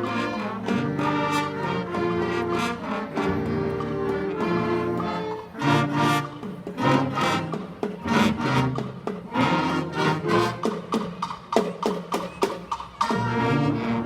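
School concert band playing the closing bars of a piece: held brass chords, then a run of short accented hits with percussion, ending on a final loud chord.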